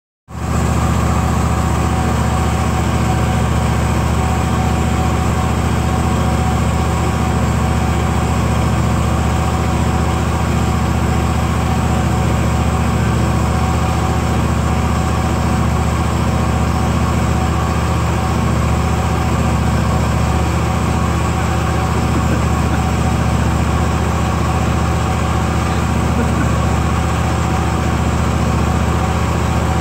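An engine idling steadily: a constant, unchanging low drone.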